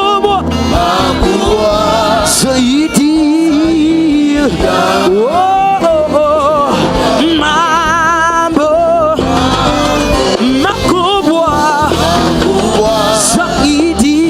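Live gospel worship music: a solo singer holding long, wavering notes with vibrato and sliding between pitches over a steady band accompaniment.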